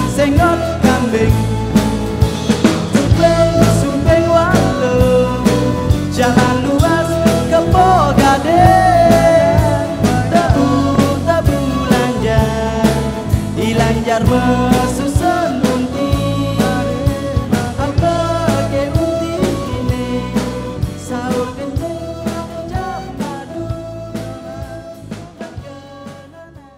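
Band music with a steady drum beat under a wavering melodic lead, fading out over the last ten seconds or so.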